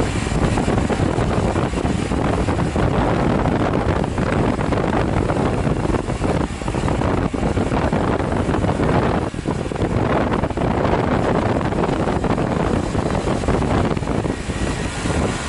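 Wind rushing over the camera microphone on a moving motorcycle, mixed with the Honda Varadero 125's small V-twin engine running.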